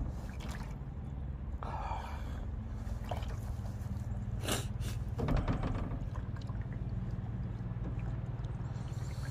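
Water splashing in a plastic basin as a face is washed by hand, scooped up and splashed in short bursts, loudest around the middle. A steady low hum runs underneath.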